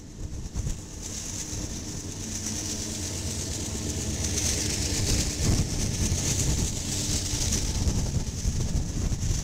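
Freight train of tank cars rolling past: a steady low rumble of wheels on rail with a high hiss over it.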